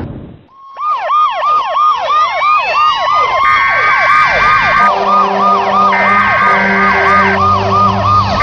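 A rumble fades out in the first half-second, then several emergency vehicle sirens start up just under a second in: fast yelping sweeps overlap with rising wails. About three seconds in, long steady horn blasts join them, repeating every couple of seconds.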